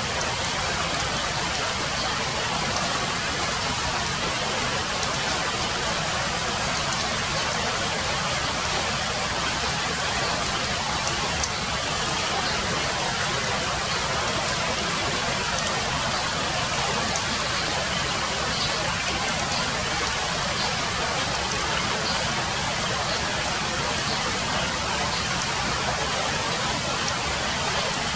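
Steady hiss of rain falling on leaves, with faint drips ticking now and then.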